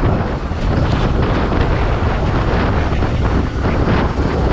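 Steady wind noise buffeting the microphone of a camera mounted on an electric dirt bike riding at speed, strongest in the low end.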